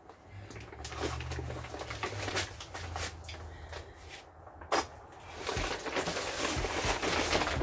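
Crinkling and rustling of plastic tarp and tape being handled, with scattered clicks, a sharp knock a little under five seconds in, and denser crinkling over the last couple of seconds.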